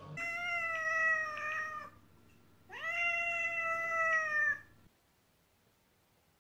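A cat meowing twice: two long, loud meows, each close to two seconds, the second starting with an upward slide in pitch before holding steady.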